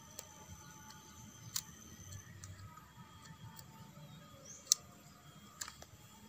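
A few faint, sharp clicks and taps of small hard parts being handled, the loudest about three-quarters of the way in. A bent bicycle-spoke hook is working a carbon brush out of an angle grinder's brush holder.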